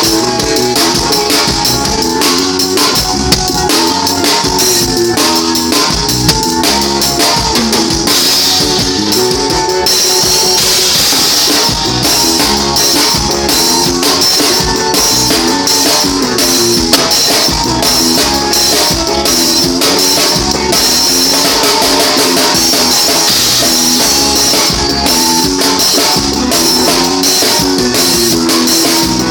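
Forró band playing live: a drum kit keeps a steady, busy beat with constant cymbal wash, under guitar and other pitched instruments.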